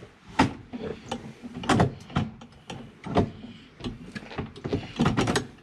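A series of irregular knocks and clicks, six or seven in all, from things being handled inside a car's cabin around the dashboard.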